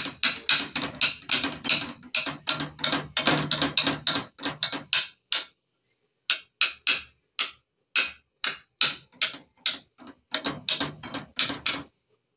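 A rapid run of sharp knocks or taps, several a second, breaking off for about a second around the middle and stopping shortly before the end.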